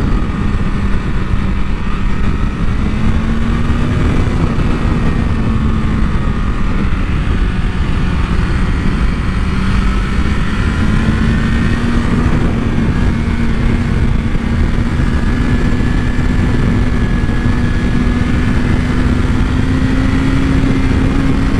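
Sport bike engine running steadily under way, its pitch dipping slightly midway and then rising slowly through the second half, with heavy wind rush over it.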